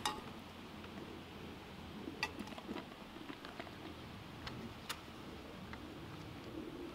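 A few light metal clinks and taps as a metal camp mug and cook kit are handled and set down: the loudest right at the start, others about two and five seconds in. Under them is a faint steady hiss.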